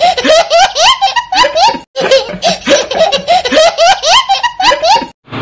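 A young child laughing hard in quick, rising bursts. The same stretch of laughter plays twice, with a short break about two seconds in, and it cuts off abruptly just before the end.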